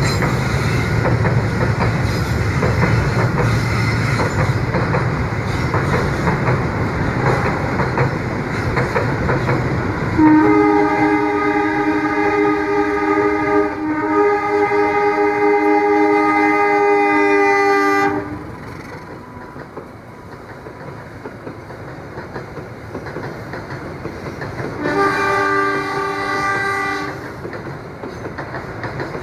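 A train running past with wheels clattering on the rails. About ten seconds in, a long horn blast of several notes sounding together starts and holds for about eight seconds, with a brief dip partway, then cuts off. Near the end, a second, shorter horn blast sounds.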